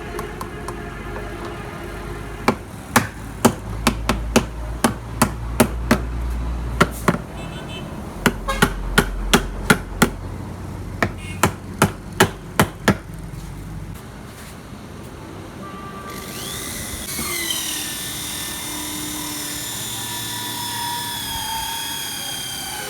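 Sharp hammer blows, about two to three a second in three runs with short pauses, over a steady machinery hum. Near the end a motor whine starts, rises in pitch and then holds steady.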